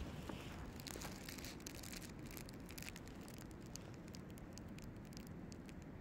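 Faint outdoor ambience during a heavy snowfall: a low steady rumble with many light, irregular ticks and crackles, busiest in the first couple of seconds.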